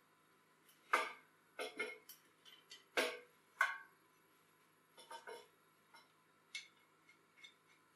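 Sheet-metal parts being handled on a workbench: a steel bracket knocked and clinked against a steel frame in scattered sharp taps, the loudest about a second and three seconds in.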